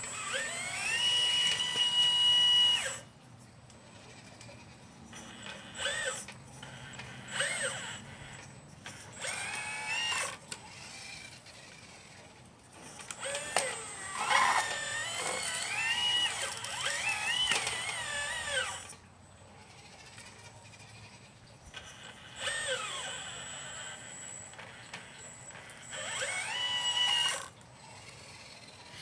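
Electric motors of a 1/12 scale RC Liebherr 954 excavator whining in repeated bursts as its functions are worked, each one rising in pitch as it spins up and then holding steady. Most bursts last a second or two; one in the middle runs about five seconds, with the pitch wavering up and down.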